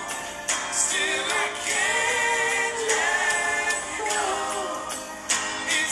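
A song with a singing voice: held, gliding sung notes with short breaks between phrases, thin and with almost no bass.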